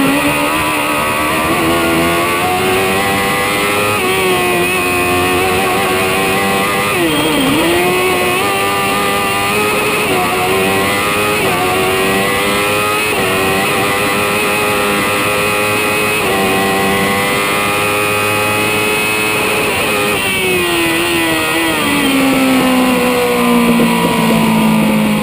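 Hillclimb prototype race car's engine heard from inside the cockpit, driven hard with repeated rises in revs and quick gear changes every few seconds. The pitch dips sharply once about seven seconds in, and the revs fall steadily near the end as the car slows.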